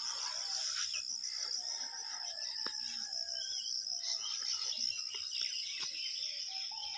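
A steady, high-pitched insect drone, like crickets, with faint, scattered bird calls.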